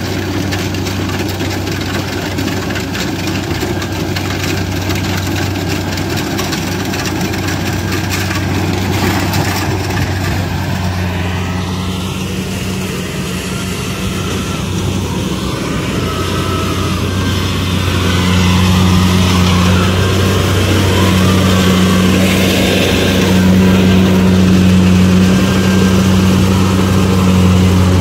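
Kubota rice combine harvester's diesel engine running steadily with a deep, even hum. The hum grows louder about two-thirds of the way through.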